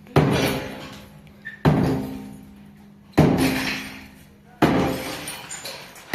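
Heavy strikes repeating evenly about every second and a half, each a sharp blow followed by a ringing decay.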